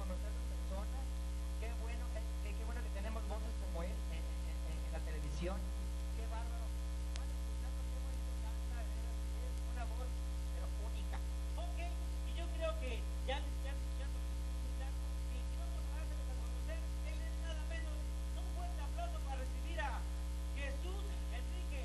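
Steady electrical mains hum throughout, with faint, indistinct voices coming and going underneath it.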